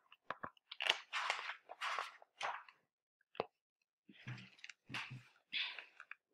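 A hardcover picture book being handled and opened: its cover and pages rustle in a series of short bursts, with a sharper click about halfway through.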